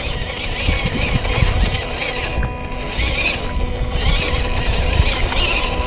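Radio-controlled scale off-road truck driving through muddy water: a steady thin whine from its electric motor and gears over rumbling, churning noise.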